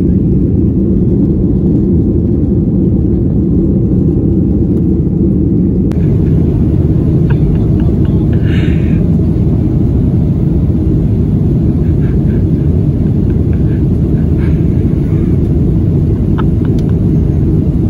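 Airliner cabin noise in flight: the steady low rumble of jet engines and rushing air, heard from a window seat.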